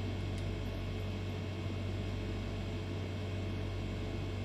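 Steady low hum with an even hiss behind it: background room noise. One faint click comes about half a second in.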